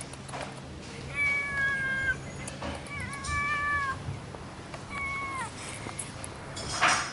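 Domestic cat meowing three times: two fairly level, high calls of about a second each, then a shorter one that drops in pitch at the end.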